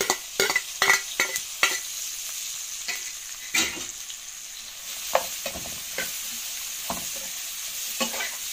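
Chopped onions dropped into hot ghee in an aluminium frying pan with browned chicken gizzards, sizzling steadily while a metal spoon knocks and scrapes against the pan. There is a quick run of clicks in the first couple of seconds and a louder knock about three and a half seconds in.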